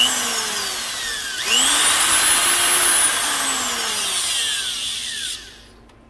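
High-speed rotary tool with a metal cutting wheel grinding the end of an RC boat flex cable to round it off and clean it up. The motor's whine climbs sharply about a second and a half in, then winds down and stops shortly before the end.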